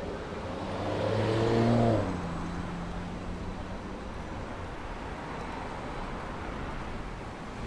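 A motor vehicle passing close by on a busy city street, its engine note and tyre noise rising to a peak just under two seconds in and then fading into steady traffic noise.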